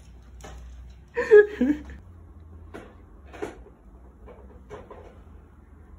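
A brief vocal call about a second in, followed by several soft knocks.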